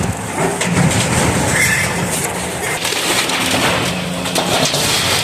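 Demolition excavator's diesel engine running under load, with a steady low hum beneath a continuous irregular clatter and crunching as the machine tears into the gym building.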